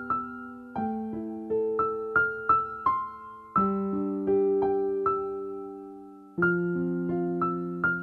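Background music on a piano-like keyboard: a slow, gentle melody of struck notes over held bass notes that change every few seconds.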